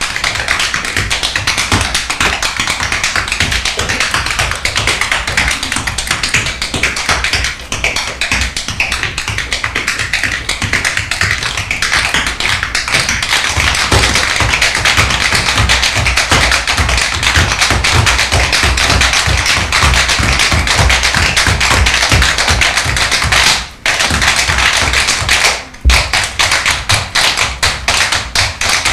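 Tap dancers' shoes striking a stage floor in a fast, dense, continuous rhythm of taps. The tapping breaks off briefly twice, about 24 and 26 seconds in, the second break ending in one hard stamp, and the taps come more spaced out near the end.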